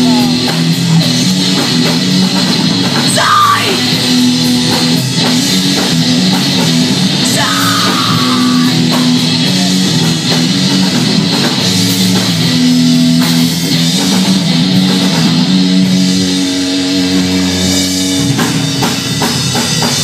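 Live rock band playing: two electric guitars and a drum kit in a loud, driving instrumental passage with held guitar notes over steady drumming.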